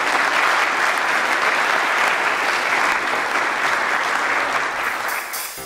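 Audience applauding steadily at the close of a speech.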